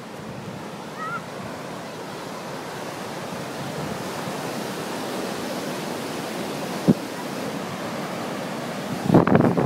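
Ocean surf washing onto a beach, a steady rush of waves that slowly grows louder. A single sharp click comes about seven seconds in, and a brief louder burst comes near the end.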